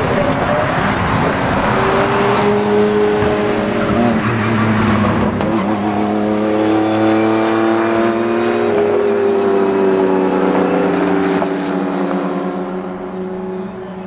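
Porsche race cars, including a 911 GT1-98, driving past on track under power. Their flat-six engines are loud, with the engine note climbing in pitch about two seconds in. The sound falls away somewhat near the end.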